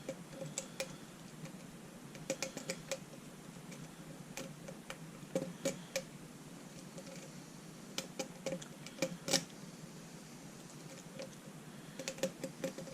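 Quiet, irregular metal clicks and ticks in small clusters: a deep hook lock pick wiggling the pins of a Medeco Biaxial lock cylinder under tension, trying to rotate them into their sidebar gates.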